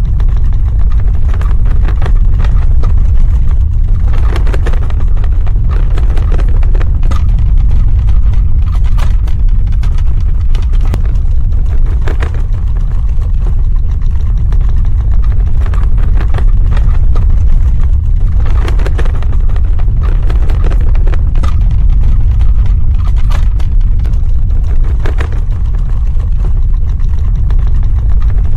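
Earthquake sound effect: a loud, steady deep rumble with scattered cracks and rattles throughout.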